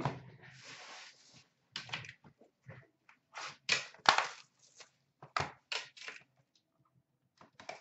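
Hockey card boxes being handled on a glass counter: a brief rustle, then a string of sharp taps and knocks as boxes are slid, picked up and set down.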